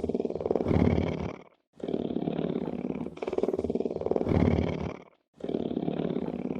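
A big cat purring: a low, fast pulsing through each breath in and out. The same purr repeats in runs of about three and a half seconds, broken by short silences about one and a half seconds in and again about five seconds in.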